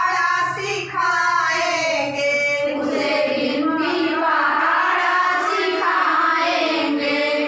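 A group of women singing a children's action song together, without pause.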